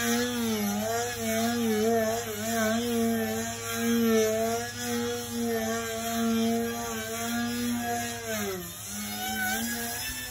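An electric RC aerobatic plane's 2217 brushless motor and propeller whining, the pitch wavering up and down as the throttle is worked. About eight seconds in the pitch falls sharply as the throttle is pulled back, then the whine picks up again at a lower pitch.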